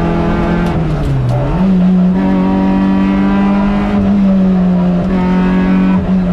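Rally car engine heard from inside the cockpit on a special stage. The engine note drops about a second in, with a few sharp clicks, then rises sharply and holds a steady high pitch for about three seconds before easing a little near the end.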